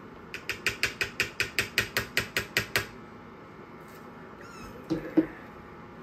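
A quick, even run of about fourteen sharp clicks, some six a second, lasting about two and a half seconds. About five seconds in, a three-week-old American pocket bully puppy gives a short squeak, with a sharp knock that is the loudest sound.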